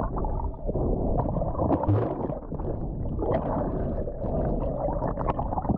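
Muffled water noise, gurgling and sloshing with scattered clicks and knocks, as heard with the microphone in or under the water while snorkelling.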